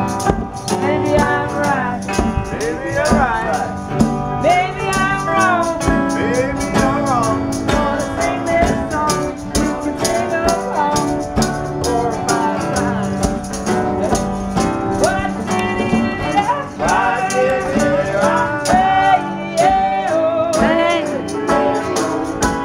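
Live acoustic folk jam: fiddle playing sliding melody lines over acoustic and resonator guitars, with djembe hand drums and a tambourine keeping a steady beat.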